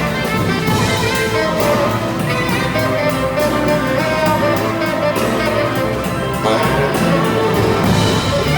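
Symphonic jazz orchestra playing a blues-style piece live: strings and brass over a steady drum beat, with no voice.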